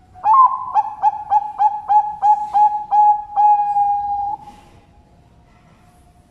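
Zebra dove (perkutut) singing: a quick string of about nine short coos, each dipping in pitch at its start, ending in one longer held coo about four seconds in.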